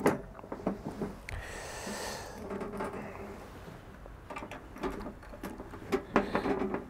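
Scattered light clicks and knocks of a portable gas barbecue's metal lid and frame being handled and set down on a folding table, with a brief rustle about two seconds in.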